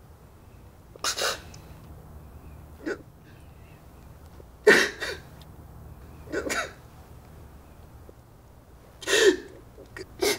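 A man sobbing: about five short, gasping sobs a second or two apart.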